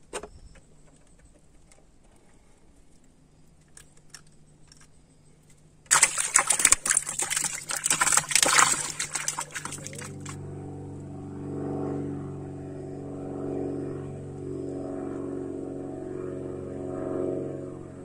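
Quiet river ambience with a few faint clicks, then about six seconds in a loud rushing noise that lasts some four seconds and cuts off suddenly. After it, a small boat engine drones steadily, its loudness swelling and fading.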